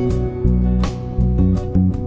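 Background music: guitar, plucked and strummed, over a moving bass line with a steady beat.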